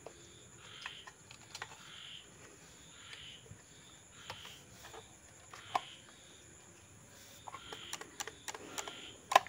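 Quiet, scattered clicks and light knocks of hands fitting the plastic air filter cover onto a chainsaw's carburettor, with one sharper click near the end.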